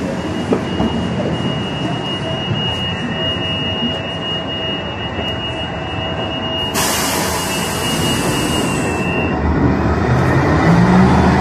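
Inside a city bus: steady engine and cabin rumble with a thin high steady tone. About seven seconds in comes a sudden loud hiss of compressed air from the pneumatic doors that lasts about two seconds. The engine rumble grows louder near the end as the bus moves off.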